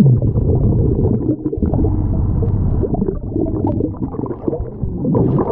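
Underwater recording: dense, muffled low rumbling and gurgling of moving water and bubbles around a diver on the river bottom, starting abruptly.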